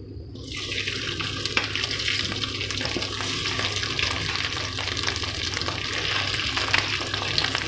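Boiled potato pieces going into hot desi ghee with cumin and green chilli in a stainless steel kadhai, the fat sizzling steadily from about half a second in. A low steady hum sits underneath.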